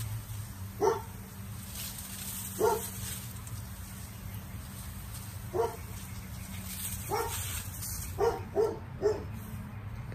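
A dog barking in short single barks, spaced unevenly, with three in quick succession near the end.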